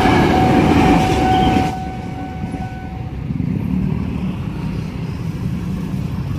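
Electric commuter train passing over a level crossing: a loud rumble of wheels on rails that stops suddenly about two seconds in, with a steady high tone holding a little longer. After it, motorcycle engines idling in waiting traffic.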